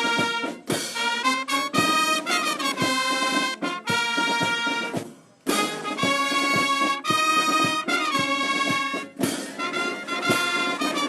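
Music led by brass instruments, with a short break about five seconds in.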